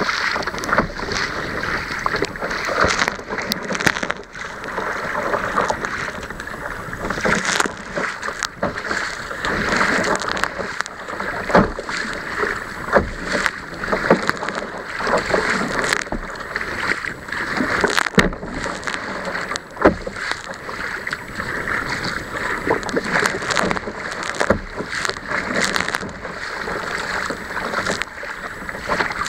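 Sea kayak driving through choppy waves: water rushing along the hull and splashing over the bow, with frequent sharp slaps as waves hit the boat.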